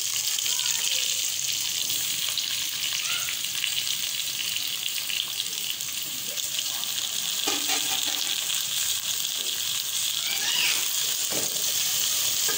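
Sliced taro root sizzling in hot oil in a metal pot, the frying hiss starting suddenly as the pieces go in and holding steady. A few scrapes of a stirring spoon against the pot in the second half.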